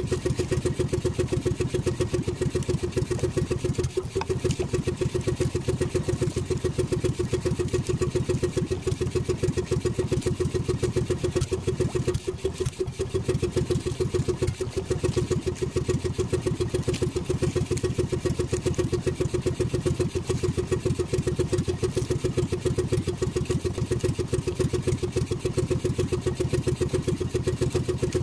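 Small engine of a motorized outrigger fishing boat running steadily at an even pace.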